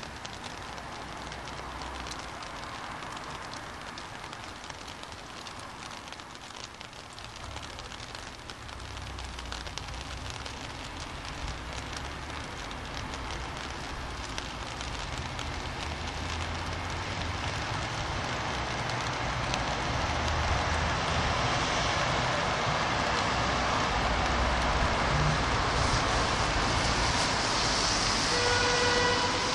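Rain on a city street with traffic: tyre hiss on the wet road builds steadily as a car approaches, over a low engine rumble. Near the end a short pitched tone sounds for under a second.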